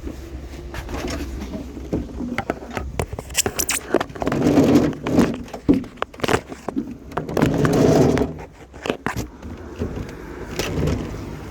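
Clattering knocks and scraping as salvaged junk is shifted and loaded into a vehicle, with two longer, louder scrapes in the middle.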